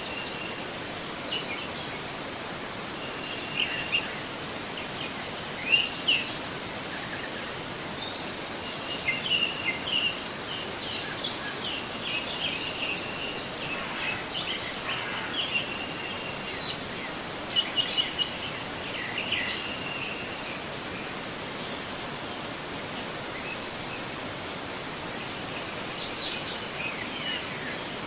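Steady rush of a forest river flowing, with birds chirping and calling over it, most busily through the middle and again near the end.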